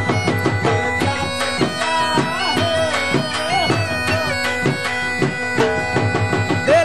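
Background music: a held drone under a bending melody line, over a steady drum beat.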